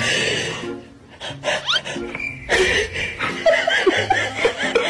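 Laughter, rising from about halfway through. It begins with a short burst of noise and a few quick rising squeaks.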